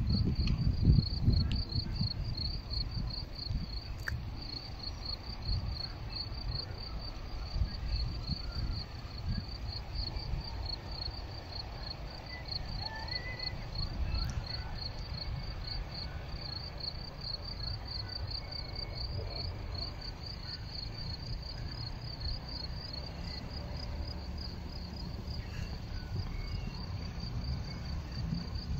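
Crickets chirping in a steady, evenly repeated high-pitched trill, with wind rumbling on the microphone, strongest in the first few seconds.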